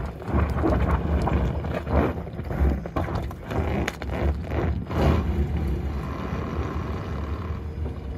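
Wind buffeting the microphone, with irregular crackling and knocking as the tyres of a Rivian R1T electric pickup crunch over rocks and loose gravel while it crawls up a steep trail.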